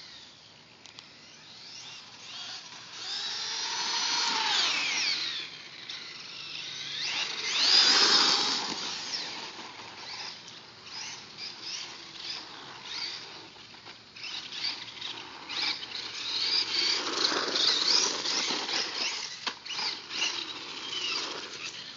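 Traxxas 1/16 Summit electric RC truck driving on asphalt: its motor and gears whine, rising and falling in pitch as it speeds up and slows, in several runs, loudest about eight seconds in.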